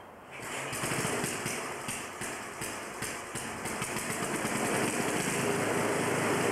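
An engine running, with a rapid irregular pulsing that steadies into a low even hum toward the end.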